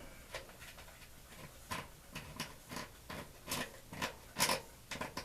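Faint, irregular clicks and rustles of metal parts being handled as the water heater's burner assembly is bolted back together, about one or two small sounds a second.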